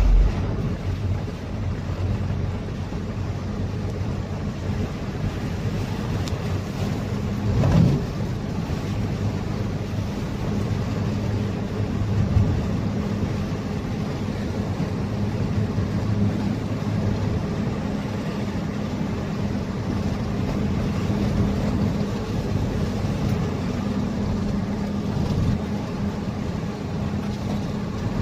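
UAZ engine running steadily while under way, a low drone over road and tyre noise. A brief louder swell comes about eight seconds in, and a smaller one about four seconds later.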